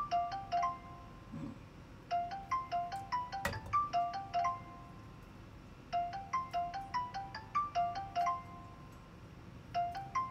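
A phone's call ringing tone: a short chiming melody of a few notes that repeats about every four seconds while the call goes unanswered. A single knife tap on the cutting board comes about three and a half seconds in.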